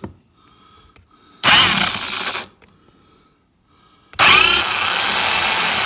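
A handheld power tool run in two bursts on metal: a short one of about a second, then a longer one of about three seconds.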